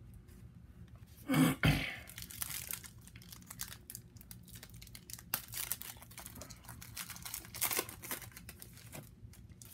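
The foil wrapper of a trading-card pack crinkling and tearing as it is opened, with the cards rustling as they are handled. About a second and a half in there is a short vocal noise like a throat clearing.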